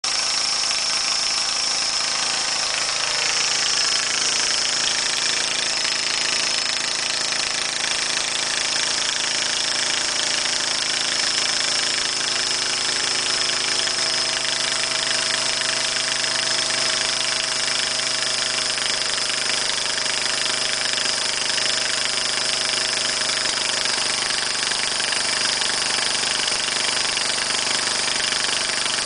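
Snapper riding mower's 14.5 hp Briggs & Stratton engine running steadily, with a constant high whizzing note over the engine sound. The owner puts the whizzing down to an exhaust leak where an exhaust bolt has broken off.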